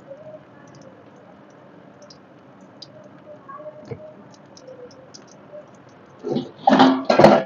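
Cumin seeds frying in hot oil in a steel wok, with a soft sizzle and scattered small crackles and pops. Near the end come two loud, brief bursts of sound.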